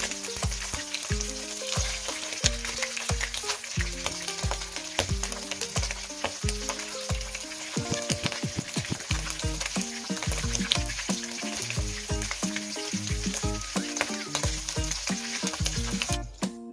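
Smoked fish (tinapa) sizzling and crackling as it fries in hot oil in a wok, the oil spattering. Background music with a steady bass beat plays underneath. The sizzle cuts off suddenly near the end.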